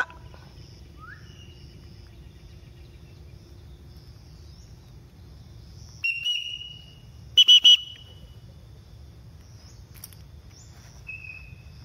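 A held high whistled note about six seconds in, then a quick loud run of three harsh calls, and a short whistled note near the end. A faint steady insect buzz runs underneath.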